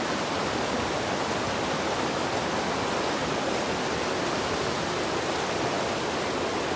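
Steady rush of a mountain stream, an even hiss with no breaks.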